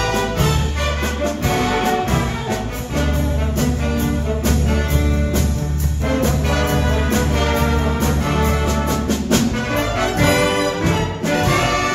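Live jazz big band playing a light tune: saxophones, trumpets and trombones over upright bass, electric archtop guitar and a drum kit, with drum and cymbal strokes throughout.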